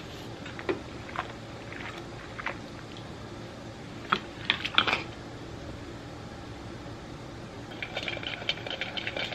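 Small metal solenoid-valve parts clicking and clinking in stainless steel bowls of soapy water as they are scrubbed with a toothbrush and handled, over a steady low hum. A cluster of louder clinks comes a little after four seconds, and a run of rapid light clicking near the end.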